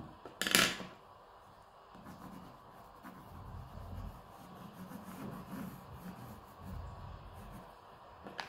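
Coloured pencil sketching on paper: soft, uneven strokes rubbing and scratching across the sheet. A sharp knock, the loudest sound, comes about half a second in.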